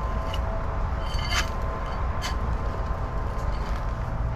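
A steady low rumble with a faint steady hum, and three faint clinks of a hand mattock striking gravel and dirt while a drain trench is dug out; the middle clink rings briefly.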